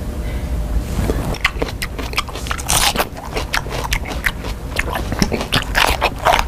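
A person loudly biting and chewing a crisp raw food: a string of sharp crunches starting about a second in, coming thickest about halfway through and again near the end.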